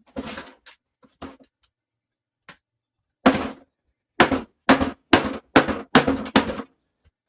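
Hard blows struck on the plastic housing of an electric pressure washer to break it open where the screws won't come out. Two single blows come in the first second and a half, then from about three seconds in a run of seven loud blows at about two a second.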